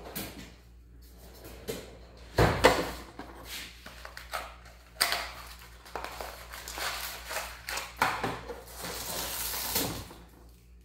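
Workbench handling noises as a small cardboard box is handled: a sharp knock about two and a half seconds in, another near five seconds, then a longer stretch of rustling and scraping.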